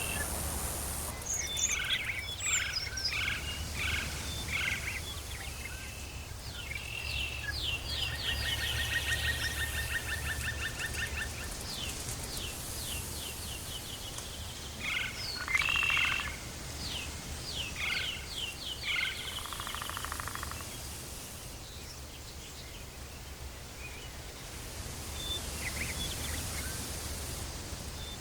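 Tropical forest ambience: several animal calls, mostly birds, in rapid series of repeated notes and trills, busiest near the start, the middle and again toward the end, over a steady low background hum.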